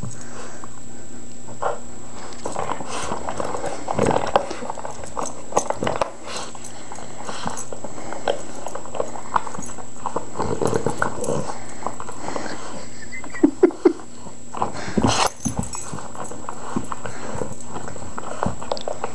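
Boston terrier chewing and gnawing an orange rubber squeaky toy: a busy run of short clicks and knocks, with three quick pulses about two-thirds of the way in and a sharper knock just after.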